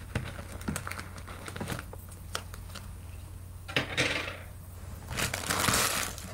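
Jewelry and its packaging being handled: small scattered clicks and taps, with crinkling rustles about four seconds in and again near the end. A steady low electrical hum runs underneath.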